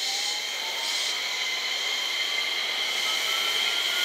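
JR West 227 series electric multiple unit moving slowly, its traction inverter and motors giving a steady high whine with a thinner tone that slowly rises in pitch.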